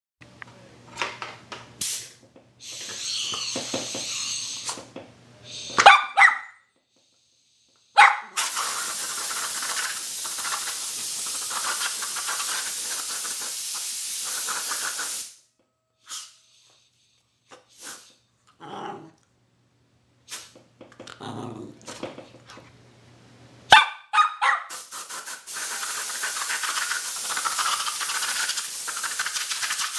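Compressed-air blow gun hissing in long blasts that start and stop suddenly, the longest about seven seconds, blown into a dog's mouth. Short dog sounds and sharp clicks come between the blasts.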